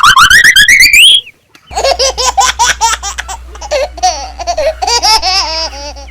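Cartoon sound effects: a rising whistle-like glide that cuts off after about a second, then, after a brief gap, high-pitched, sped-up-sounding giggling over a steady low hum.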